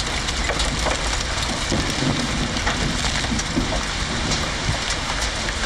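Steady hiss dotted with many small ticks: grit and debris pattering down through a thick dust cloud, with a faint steady tone behind it.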